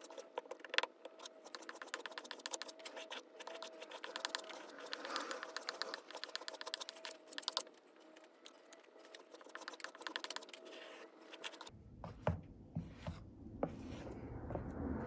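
Wood paste being pressed and scraped into a hole in wood with a tool: a dense run of small clicks and scrapes. About twelve seconds in, a low jet rumble sets in and grows louder towards the end, as an F-16 fighter jet approaches overhead.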